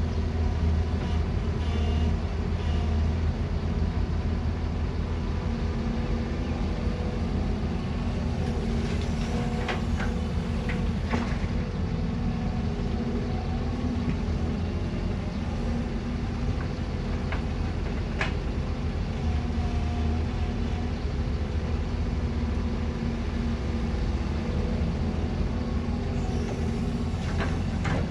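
Heavy earthmoving machinery's diesel engine running steadily, with a few sharp metal clanks now and then.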